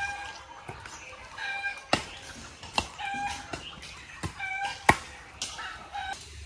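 A string of short animal calls, each held at one pitch, about one a second, with four sharp knocks among them, the loudest near the end.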